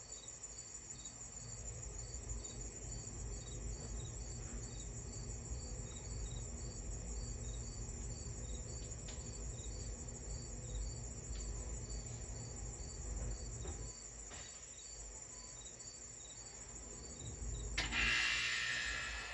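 Insects calling steadily: a continuous high trill with a second insect chirping regularly about twice a second, over a low rumble. A louder rushing noise comes in near the end.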